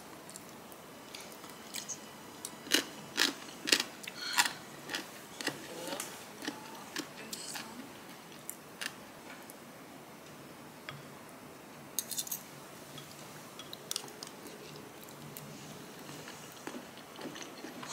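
A person eating close to the microphone: chewing and biting, with scattered short crunches and clicks, most of them bunched a few seconds in.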